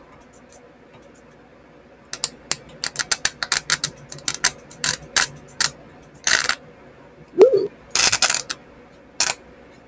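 Electric sparks snapping and crackling as the solder tip of a homemade capacitor welder, charged from a 30-volt supply, touches a grounded steel sheet. A quick irregular run of sharp snaps starts about two seconds in, with a few longer crackling bursts in the middle and near the end.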